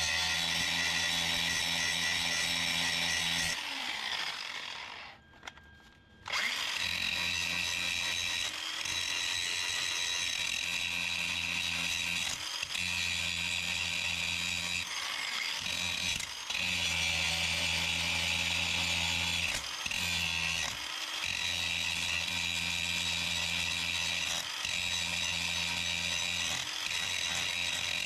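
DeWalt angle grinder grinding down welds on a car's steel firewall, a steady motor whine with the disc rasping on the metal. About four seconds in it stops and winds down, then starts again abruptly about two seconds later, with short dips in the sound every few seconds after that.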